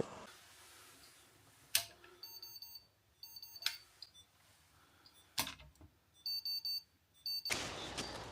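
Short high electronic beeps in several quick bursts, with a few sharp clicks between them, from a wireless fire alarm signal survey kit being set up. Near the end they give way to a steady outdoor hiss.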